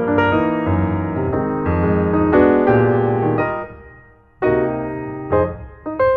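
Background piano music: a melody of struck notes that dies away to a short lull about four seconds in, then picks up again.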